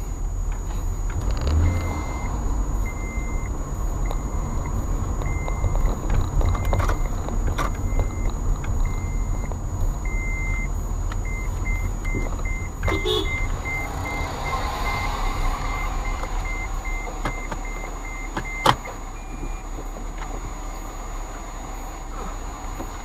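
Car cabin with the engine running low and steady, and a dashboard warning chime beeping again and again, about once a second at first and faster from about halfway. The beeping stops with a sharp knock near the end.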